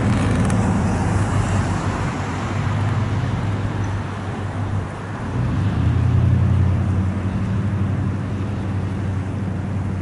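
Low engine hum of passing road traffic over a steady wash of outdoor noise, swelling a little past halfway as a vehicle goes by.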